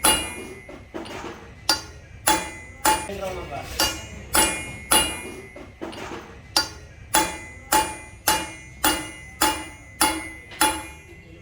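Hammer blows on metal, struck at an even pace of about two a second, each with a short metallic ring.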